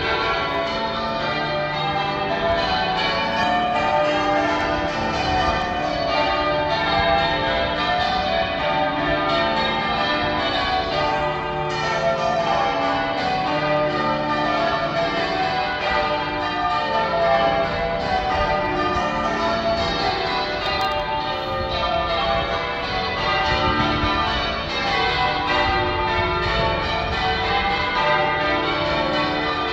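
A cathedral's ring of church bells in change ringing: a continuous, even stream of bell strokes at different pitches, each tone ringing on under the next.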